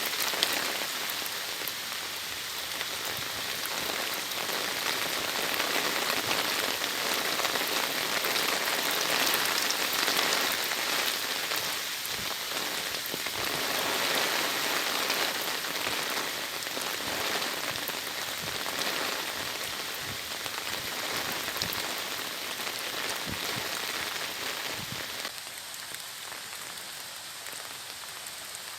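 Heavy autumn rain falling steadily, a dense hiss with scattered drop patter, easing slightly near the end.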